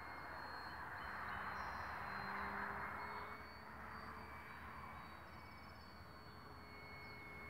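Faint distant buzz of an RC foam plane's brushless electric motor and 13x6.5 propeller (Sunnysky X3520) in flight. It swells about a second in and fades after about three seconds.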